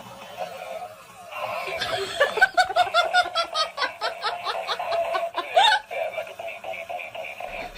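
A person laughing in a quick run of short bursts, about five a second, starting about two seconds in and stopping near the end.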